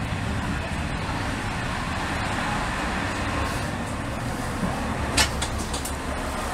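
Steady low rumble of a stationary diesel railcar idling, heard from inside the car. About five seconds in there is a sharp clack, followed by a few lighter clicks.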